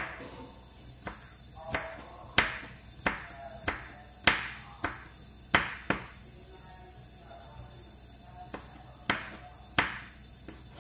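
Kitchen knife slicing red chilies on a cutting board: sharp taps of the blade striking the board, about one and a half a second, pausing for a couple of seconds past the middle before starting again.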